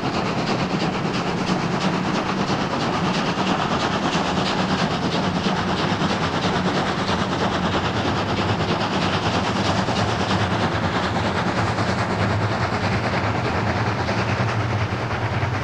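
Class 44 three-cylinder 2-10-0 steam locomotive working hard under a heavy freight load, its exhaust beating in a rapid, steady rhythm, with the rumble and clatter of the freight wagons rolling by.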